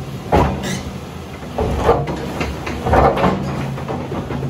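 Heavy earthmoving machinery's diesel engine running steadily, with three loud clunks of heavy stone and steel about a second and a half apart.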